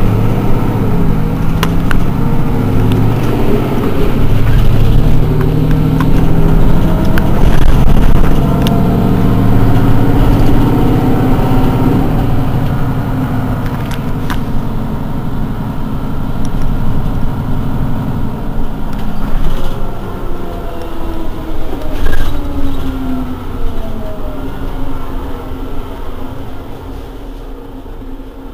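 Mercedes-Benz Citaro G articulated bus's rear diesel engine running while the bus stands still: a loud, steady low rumble with tones that slowly drift up and down. It grows quieter over the last third, with a few short sharp clicks along the way.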